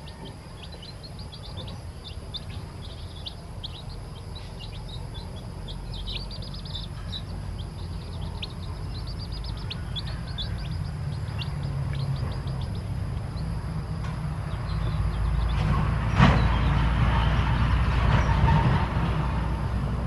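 Newly hatched chicks peeping: many short, high, falling peeps, thinning out in the second half. A low rumble builds underneath and grows loud near the end, with a single sharp knock about sixteen seconds in.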